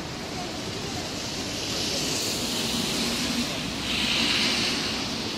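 Steady rain, with the hiss of car tyres on a wet road swelling as vehicles drive past, loudest about four seconds in.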